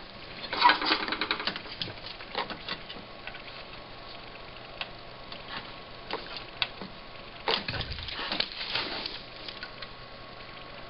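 Small hand tools clicking and tapping on a monitor's circuit board during capacitor replacement. There are irregular sharp clicks, with two busier flurries, one near the start and one about two thirds of the way in, the second with a dull knock.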